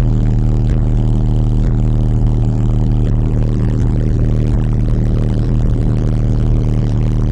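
Car audio subwoofers playing a loud, steady bass tone: the system's high-note peak, measured at about 162 dB.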